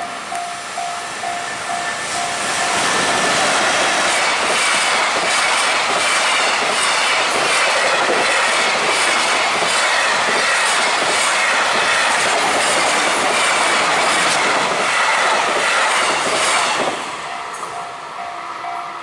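Level-crossing warning bell dinging steadily, then drowned out about two seconds in by a long container freight train passing close by. The train's noise lasts about fifteen seconds, and the crossing bell is heard again near the end once the train has gone by.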